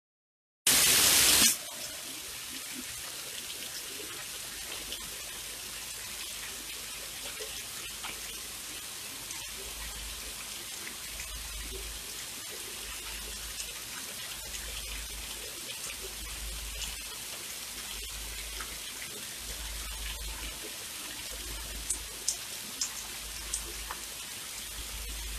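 Silence, then just under a second in a loud rush of noise lasting under a second, after which steady rain falls with a constant hiss and scattered drop ticks. A few louder drips land near the end.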